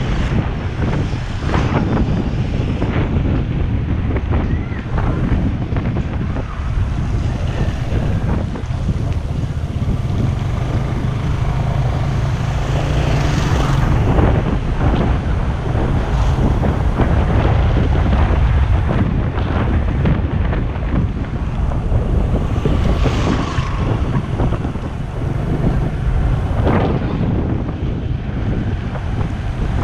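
Wind blowing hard over the microphone of a moving motorcycle, with the motorcycle's engine running underneath.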